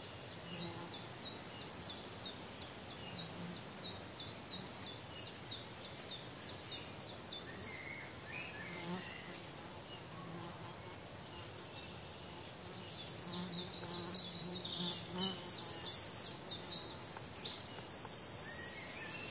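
Carpenter bee buzzing in low hums that come and go as it flies about the damaged wooden fascia, over a quiet outdoor background with a regularly repeated high chirp. About two-thirds of the way through, louder rapid high-pitched chirping sets in and stays until near the end.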